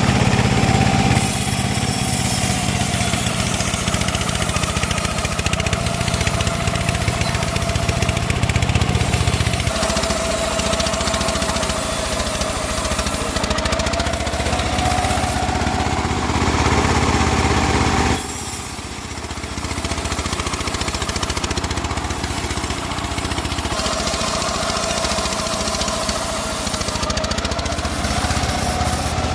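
Home-built bandsaw running and sawing teak: a steady mechanical drone with a whining tone that sags and recovers in pitch. The level dips briefly about 18 seconds in.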